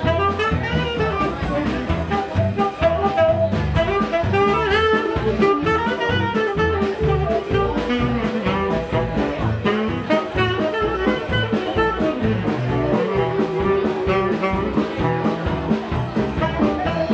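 Up-tempo swing jazz from a small band: horns play a quick, busy melody over a steady bass and drum-kit beat.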